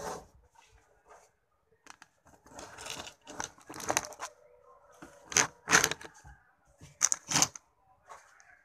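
Crisp fried galunggong (mackerel scad) crunching and cracking as it is broken and eaten, several sharp crunches with the loudest in the second half.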